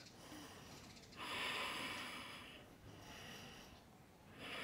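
A woman breathing, heard close up on a clip-on microphone: a long breath about a second in and another starting near the end, as she holds a strenuous yoga strength pose.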